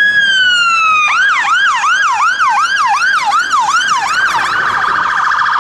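Fire engine siren on an emergency run, changing modes. First comes a long tone that slowly falls. About a second in it switches to a fast yelp, sweeping up and down about three times a second. Near the end it changes again to a rapid warble.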